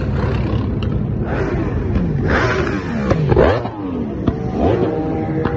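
Several motorcycle and car engines revving and passing close by one after another, their pitches rising and falling. The loudest passes a little past halfway, its pitch dropping as it goes by.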